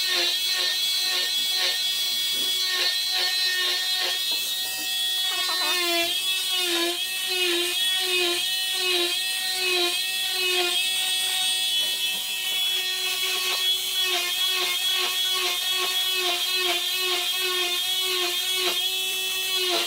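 Oscillating cast saw with a dust-extraction vacuum hose cutting through a leg cast: a steady motor whine that dips in pitch about every two-thirds of a second, in stretches, as the blade is pressed in and lifted along the cut.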